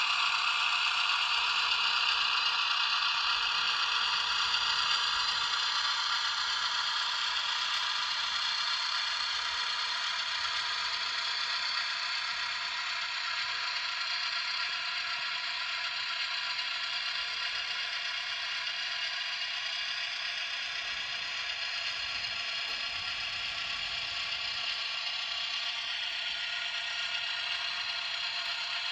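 HO-scale model Sperry rail inspection car running on the track, its small motor whirring and its wheels rattling over the rails, gradually getting a little quieter over the first several seconds and then steady.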